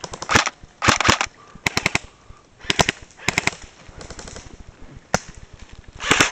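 Airsoft guns firing in short rapid bursts, about seven bursts of quick sharp shots spaced roughly half a second to a second apart.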